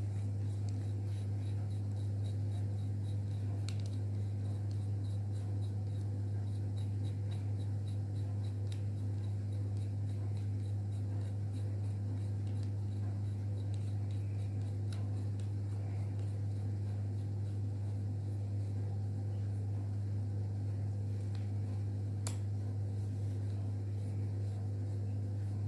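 A steady low hum throughout, over which come faint light clicks and scraping as a bearing puller is handled and fitted onto a ceiling fan's rotor shaft; one sharper click about 22 seconds in.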